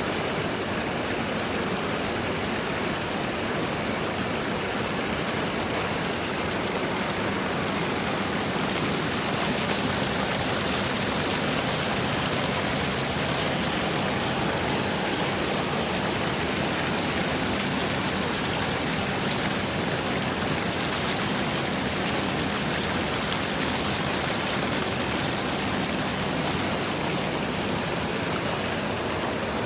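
Steady rush of running, splashing water, even and unbroken throughout, with a faint low hum beneath it through the middle.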